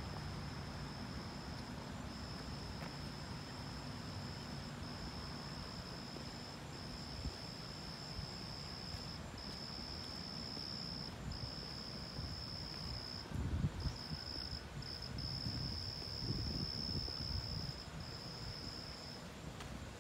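Night insects trilling steadily on one high pitch, in long runs of a second or two broken by short gaps. Low wind buffeting on the microphone grows gustier about two-thirds of the way through.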